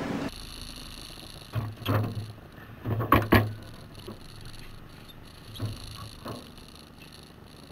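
Hollow thumps and knocks on a car's sheet-metal hood as a person climbs onto it and stands on it, picked up through the car body. A cluster of heavy thumps in the first half, the loudest a double knock a little past three seconds in, then a few lighter ones near the end.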